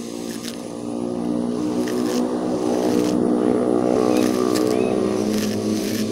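The motor of a homemade mini grass cutter running steadily at an even pitch, getting louder about a second in.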